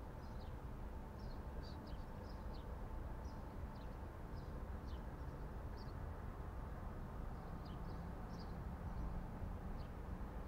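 Faint outdoor ambience: small birds chirping in short, scattered calls over a steady low background hum.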